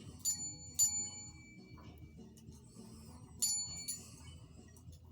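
A small desk service bell tapped by cats' paws: two quick dings about half a second apart, then a third about three seconds in, each ringing on briefly.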